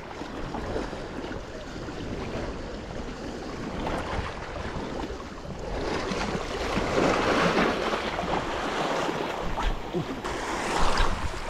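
Small waves washing against the reservoir shore, with wind buffeting the microphone. The wash swells louder about halfway through and again near the end.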